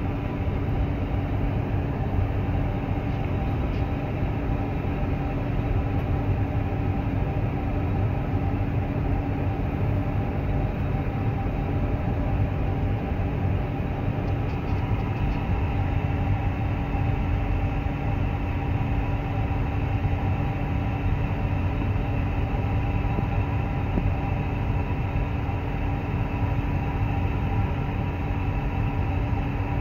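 Steady cockpit hum of a parked, powered-up Airbus A350-900: air-conditioning airflow and equipment fans, a rushing noise with several steady tones in it. A few faint clicks come about halfway through.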